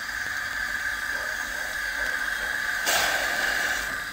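Narrow-gauge steam locomotive hissing steadily as it moves slowly in, with steam blowing from the open cylinder drain cocks. One louder burst of steam comes about three seconds in.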